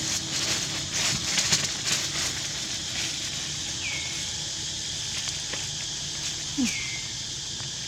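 Steady high-pitched insect drone, with scattered clicks and rustles in the first couple of seconds and two short falling chirps about four and seven seconds in.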